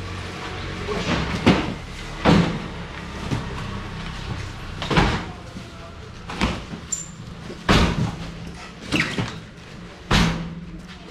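About ten sharp knocks and bangs at irregular intervals over a steady low hum, like doors or hard objects being shut or set down.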